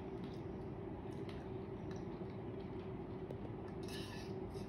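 Steady low room hum with a few faint ticks, and a short rustle about four seconds in from the phone being handled.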